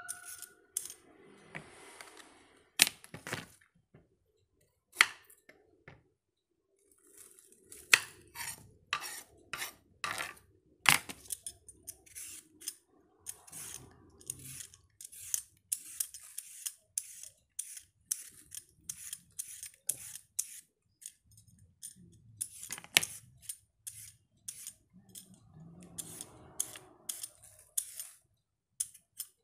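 Kitchen knife working vegetables on a cutting board: a quiet run of sharp, irregular clicks, sparse at first and coming about two to three a second from about eight seconds in.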